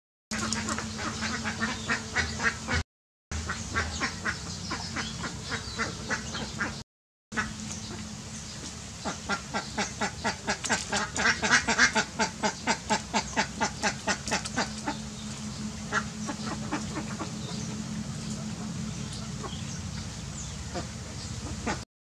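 Domestic ducks quacking in quick runs of short calls, about five a second, loudest and fastest about halfway through, over a steady low hum.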